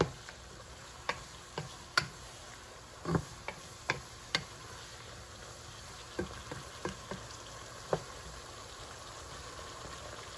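Wooden spatula stirring string beans in a pot, knocking against the pot now and then at an irregular pace, over the steady sizzle and bubbling of the vegetables cooking in their own steam. The knocks thin out near the end.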